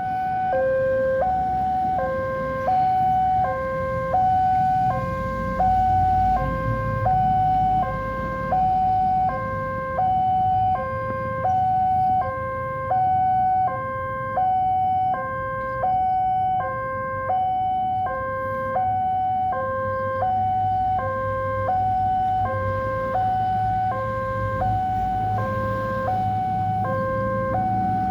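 Railway level crossing warning alarm sounding a steady two-tone electronic signal, alternating between a lower and a higher tone, each held a little over half a second. It warns that a train is approaching and the barriers are closing. Under it runs a low rumble.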